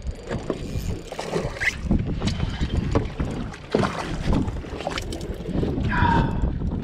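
Wind buffeting the microphone and choppy water against a bass boat's hull, with scattered knocks and clicks from handling as a smallmouth bass is brought aboard. A short pitched sound near the end.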